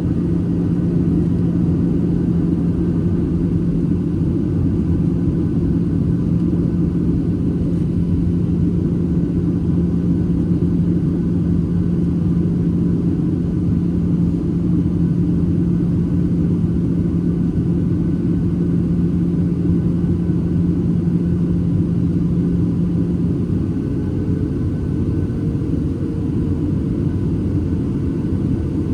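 Steady cabin roar inside a Boeing 737-800 in flight, heard from a window seat: engine and airflow noise with a low steady hum. About 23 seconds in the hum stops and a higher steady tone comes in, rising slightly.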